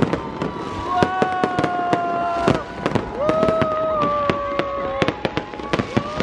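Fireworks display: a dense run of sharp bangs and crackles from bursting aerial shells. Three long steady tones, each lasting about two seconds, sound over the bangs.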